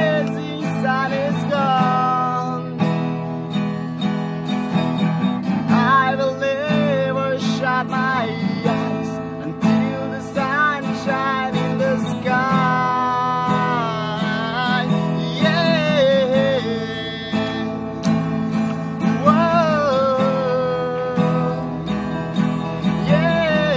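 A man singing to his own strummed acoustic guitar: steady strumming throughout, with sung phrases of a few seconds each and short gaps between them.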